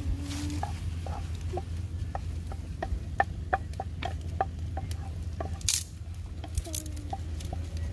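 Omelette frying in a pan over a wood fire: scattered small crackles and ticks, about three or four a second in the middle stretch, over a steady low hum.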